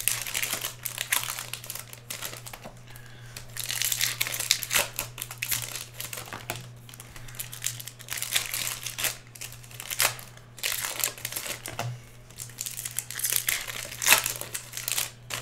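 Foil trading-card pack wrappers crinkling and tearing open in the hands, in repeated bursts, over a steady low hum.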